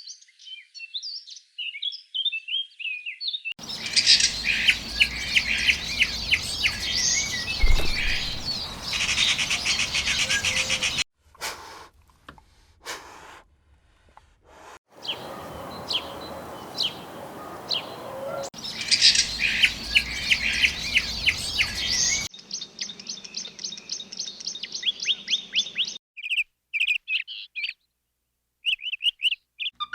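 Small birds chirping and singing, in several short clips cut one after another. About three quarters of the way through comes a fast run of evenly repeated notes.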